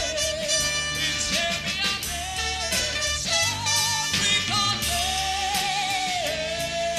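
A male pop singer singing live with orchestra accompaniment, holding long notes with a wavering vibrato.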